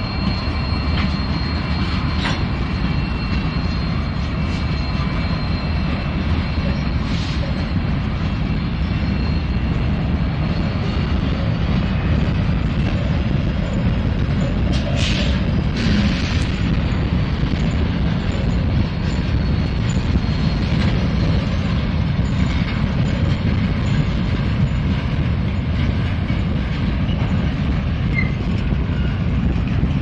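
Norfolk Southern freight train passing: diesel locomotives and then covered hopper cars, a steady low rumble of wheels on rail. Thin high wheel squeal fades out within the first ten seconds, and two short screeches come about halfway.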